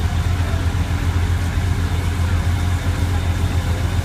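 Cruise boat's engine running with a steady low drone.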